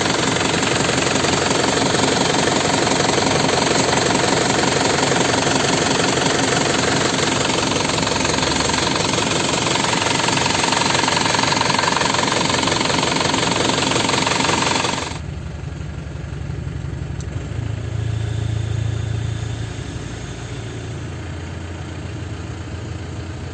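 Isuzu Panther diesel engine running with a loud, fast, clattery knock. The owner calls it more rattly than before and blames an intermittent rough-running fault. About two-thirds of the way through, the sound drops abruptly to a quieter low rumble.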